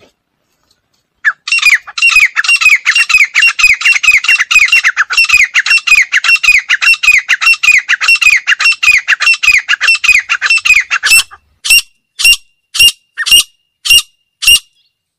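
Female grey francolin calling: a fast run of short, high, down-sliding notes, about four or five a second, starting about a second in and lasting some ten seconds, then slowing to six single notes about half a second apart.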